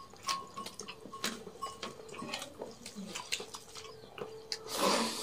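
Hands eating rice and egg curry from steel plates: fingers scooping and mixing rice against the metal, with many small clicks and chewing. A short, louder call near the end.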